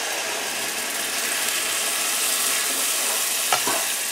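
Fresh tomato puree sizzling steadily as it is poured into hot butter, garlic and spices in a frying pan, with a spatula stirring it in near the end.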